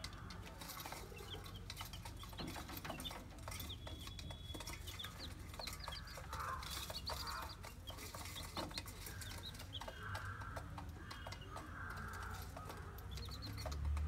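Baby chicks and quail in a cage, peeping and chirping in many short high calls, with scattered light clicks.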